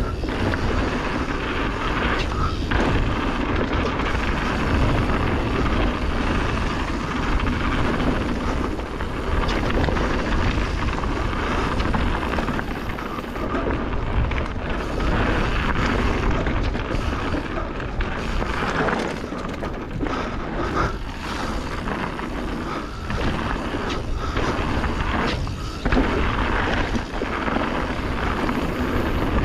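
Canyon Torque mountain bike running fast down a gravel trail: tyres crunching and hissing over loose stones, with frequent rattles and knocks as the bike hits bumps, a sharper jolt about 26 seconds in, and wind rumbling on the camera's microphone.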